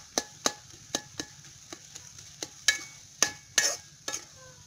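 A metal ladle stirring in a metal wok on a clay stove, with irregular knocks and clinks against the pan, some ringing briefly, and perhaps a faint sizzle beneath.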